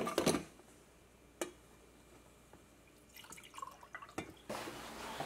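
Coffee poured from a glass drip-coffee-maker carafe into a ceramic mug. There are a few clinks and knocks as the carafe is handled, then scattered dribbles about three seconds in, and a steady pouring stream from about four and a half seconds in.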